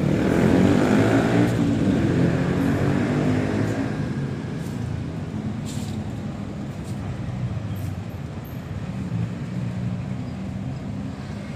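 Street traffic: a motor vehicle passes close by, its engine loudest about a second in and fading over the next few seconds, then a steadier, quieter hum of passing cars and motorbikes.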